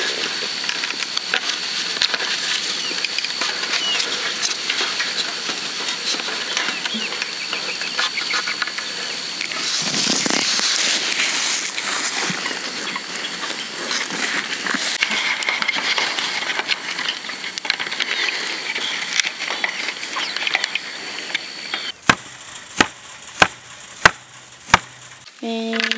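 Five sharp mallet blows about two-thirds of a second apart near the end, struck at ground level beside a wooden post. Before them, a steady background with a thin high-pitched whine that cuts off suddenly just before the first blow.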